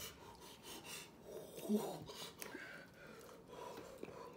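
Faint heavy breathing and sniffing by a person whose mouth is burning from very hot sauce.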